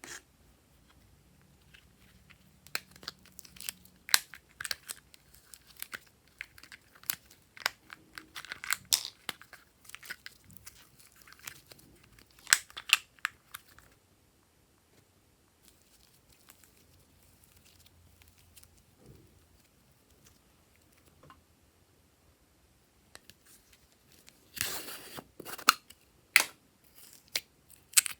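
Hands working slime, squeezing, stretching and poking it, with sticky crackling clicks and pops in clusters. A quieter stretch comes midway, then a dense burst of crackling near the end.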